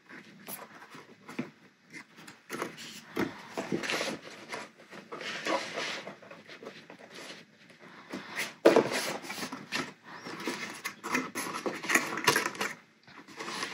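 Stiff cardstock being handled, turned and pressed: irregular paper rustling and scraping with small taps, loudest a little past the middle.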